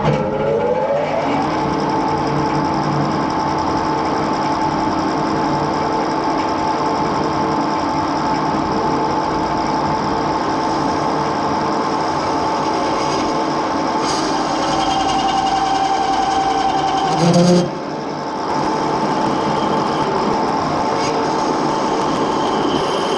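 Edgwick metal-turning lathe with a four-jaw chuck starting up, its tones rising as it comes up to speed, then running steadily. About three-quarters of the way through it dips and surges briefly, and it begins winding down at the very end.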